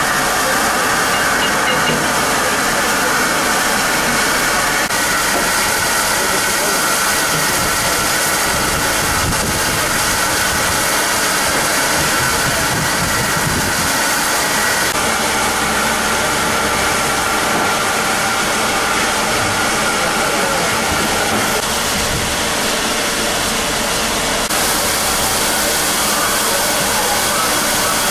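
A standing locomotive heard at close range: a steady, unbroken hiss with a running mechanical tone in it, as the engine simmers beside the train.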